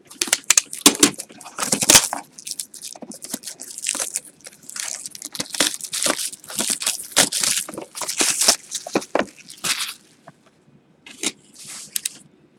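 A yellow utility knife slicing open the wrapping on a sealed trading-card box, and the box being handled as the wrapping is pulled away: a dense run of crackling, scraping and tearing that thins out about ten seconds in.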